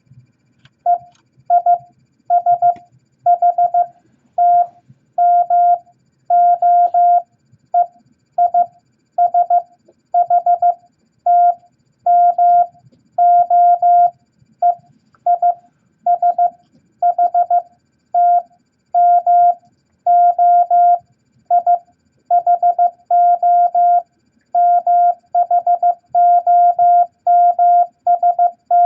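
Morse code practice tone: a single steady beep keyed on and off in dots and dashes at 15 words per minute, sending letters from the beginner set E, I, S, H, T, M and O. The keying starts about a second in, with short gaps between letters.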